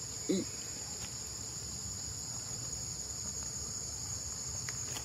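Steady high-pitched buzzing of insects in the surrounding trees, with one short rising-and-falling call about a third of a second in.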